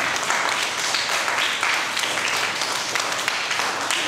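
A class of schoolchildren applauding, many hands clapping at once in a steady round.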